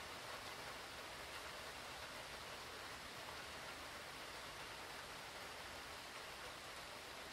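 Steady rain from a hurricane, heard as an even, continuous hiss without distinct drops.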